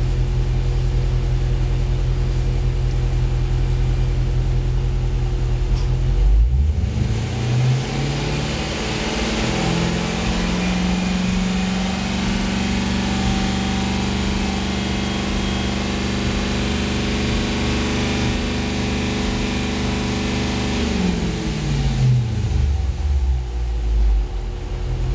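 Car engine idling, then revved up over a few seconds about six seconds in, held at a steady higher speed, and let back down to idle a few seconds before the end.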